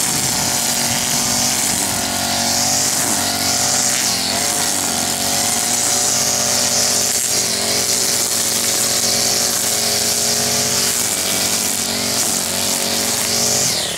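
Husqvarna 324L four-stroke string trimmer running at high throttle, its spinning line whining as it cuts grass along edging stones, with the engine note wavering a little under load. Right at the end the throttle is released and the pitch falls.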